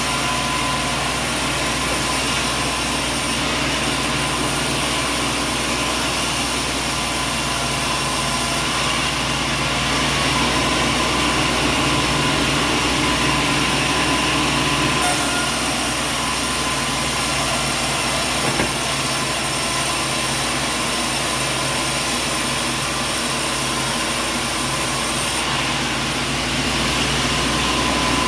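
Sawmill machinery running steadily, a dense mechanical din with a constant whine and hum.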